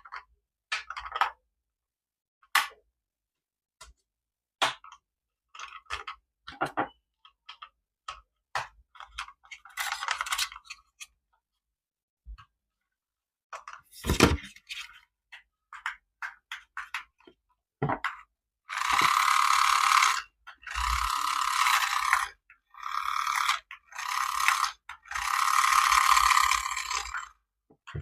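Clicks and short rattles of plastic toy parts being handled, then a toy's small electric motor and plastic gears whirring in five or six bursts of one to two seconds each.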